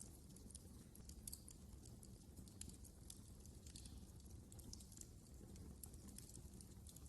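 Wood fire crackling faintly: many small irregular snaps and pops over a low, steady rumble.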